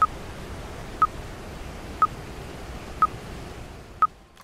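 Workout countdown timer beeping five times, one short beep a second, marking the last seconds of a rest break. Under the beeps runs a steady rushing noise that fades away near the end.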